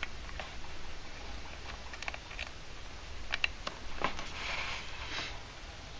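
Faint, scattered small clicks and rustling of fine electric-match lead wires being handled and clipped into a spring-loaded speaker terminal.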